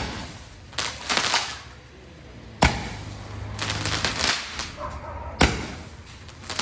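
Fireworks: three sharp bangs about two and a half seconds apart, with bursts of crackling between them.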